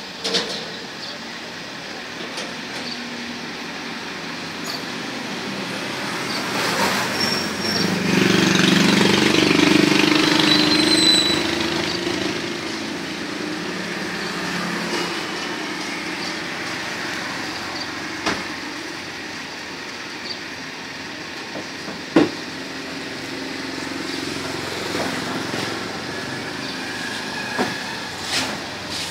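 Street traffic noise, with a motor vehicle passing close and louder for a few seconds about eight seconds in. A couple of sharp knocks come later.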